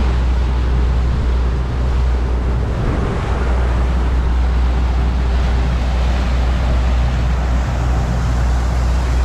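Bass boat's outboard motor running steadily at speed, with the rush of the wake and water along the hull.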